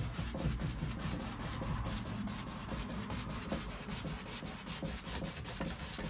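Paintbrush loaded with oil paint brushing back and forth across a gesso-primed canvas in quick crisscross strokes, several strokes a second.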